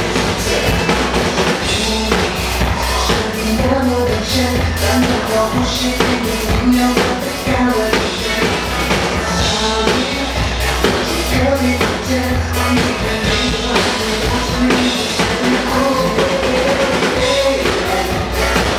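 Drum kit played over a pop song's backing track with a sung vocal, keeping a steady beat on kick drum and snare.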